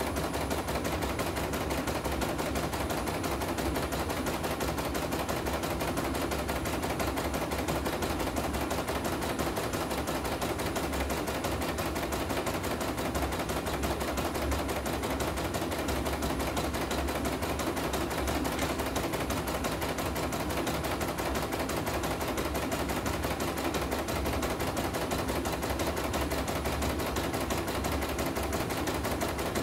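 CNY E900 computerized embroidery machine stitching steadily, its needle making a rapid, even clatter. This is a test run after repair with a new power supply and inner rotary hook, and the machine is running normally.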